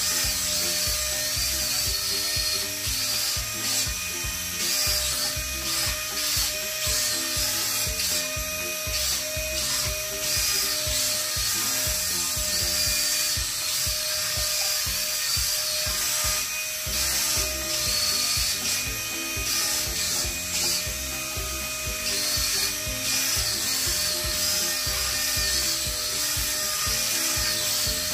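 Steady whirring whine of a wall-climbing RC toy car's suction fan as the car drives on a glass window, over background music with a stepping bass line.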